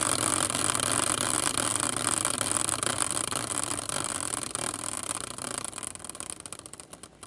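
A spun prize wheel clicking rapidly, the clicks slowing and fading as the wheel runs down and comes to rest.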